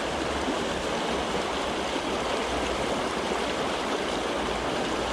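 Mountain creek water rushing and splashing steadily over rocks, close to the microphone.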